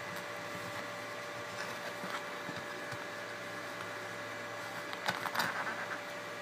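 Glass print plate scraping and clicking on the machine bed as it is turned by hand, in a short run of sounds about five seconds in, over a steady machine hum with a couple of fixed tones.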